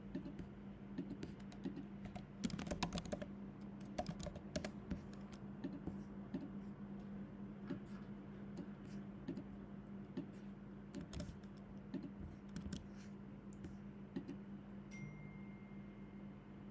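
Computer keyboard keystrokes and mouse clicks, irregular and scattered, with a quick flurry about three seconds in, over a steady low hum.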